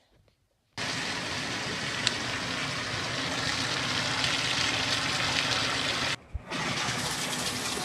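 Water running steadily into a bathtub as it fills, a loud even rush that starts suddenly about a second in and breaks off briefly near the end before going on.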